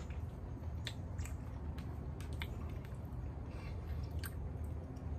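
A person chewing a mouthful of fried rice, with a few short sharp clicks, over a steady low rumble.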